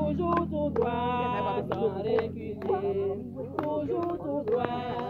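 Unaccompanied group singing of a hymn, with women's and men's voices together and sharp beats keeping time about twice a second.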